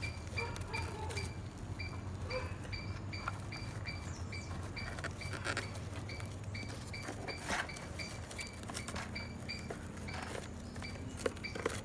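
Coir rope and dry coconut husk rustling and scraping as hands thread and knot the rope, with a few sharp clicks. Behind it, a short high chirp repeats steadily about three times a second over a low hum.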